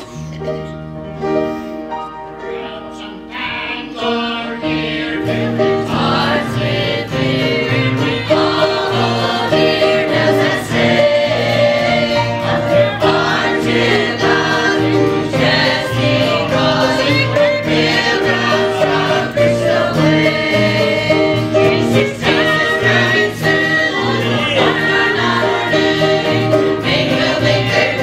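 Small mixed church choir of men and women singing a gospel hymn, softer at first and fuller and louder from about five seconds in.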